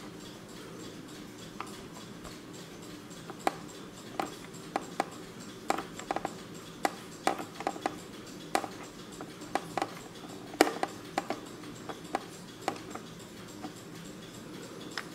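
Day-of-week flaps of a Kieninger Kundo 2000 Rolling quartz flip clock clicking over irregularly, singly and in quick runs of two or three, as the day display is advanced by hand.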